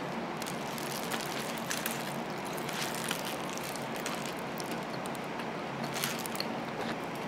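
Close-miked chewing of a mouthful of hamburger, with scattered soft clicks and crunches over a steady background hiss.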